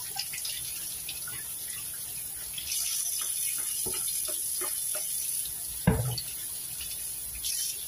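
Kitchen faucet running steadily into the sink while long eggplants are rubbed clean under the stream, with scattered small knocks and one thump about six seconds in.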